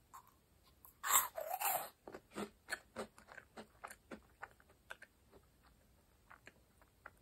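A small meringue cookie bitten and chewed: one loud crunch about a second in, then chewing with many small crunches that grow fainter and sparser as it breaks down.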